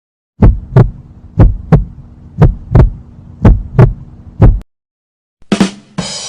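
Heartbeat sound effect: low double thumps, lub-dub, about one beat a second, five beats, stopping suddenly. Near the end a short sharp sound and the start of another effect follow.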